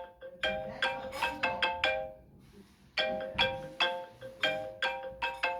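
iPhone timer alert tone: a short, quick melody of marimba-like notes that plays, pauses for about a second, then starts over.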